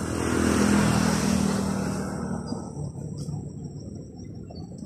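A motor vehicle passing close by: engine and tyre noise swell to a peak about a second in, then fade away over the next two seconds.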